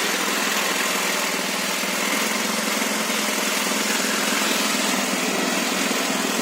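Diesel-driven feed pellet mill running: a steady, even mechanical noise of the 22 hp diesel engine and the machine.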